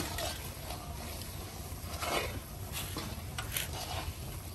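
Metal spoon stirring and scraping a thick besan laddu mixture in a large aluminium kadhai, a few faint scrapes against the pan over a low steady background noise.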